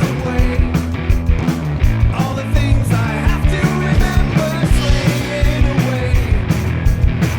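Rock music played by a band, with drums beating steadily over bass and guitar.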